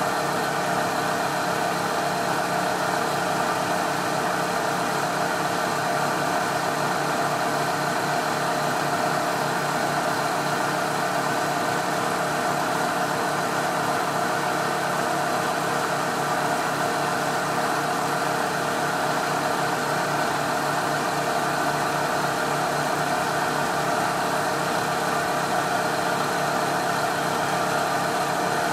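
Milling machine running with its end mill side-cutting a small metal casting clamped in a vise: a steady, unbroken machining hum with no pauses.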